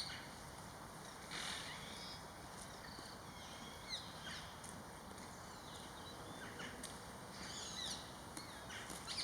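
Wild birds calling and chirping in short, scattered calls over a faint steady outdoor background hiss, with a livelier cluster of chirps about a second in and again near the end.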